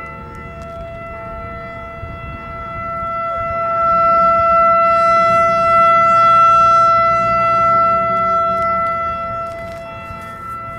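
ACA Alertronic AR-1600 electronic outdoor warning siren sounding a steady alert tone on test, one unchanging pitch with bright overtones. It swells louder a few seconds in, holds, then fades back near the end.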